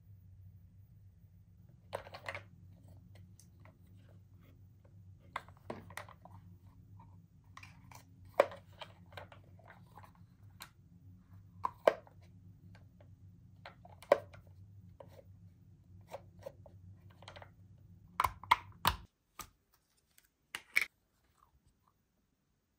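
Hard plastic toy pieces of a Play-Doh ice cream truck playset handled on a tabletop: scattered clicks and knocks, a quick cluster of them near the end. A steady low hum runs underneath and cuts off about nineteen seconds in.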